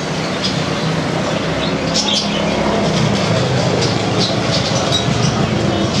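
Caged budgerigars chirping, many short high calls scattered throughout, over a steady low rumble.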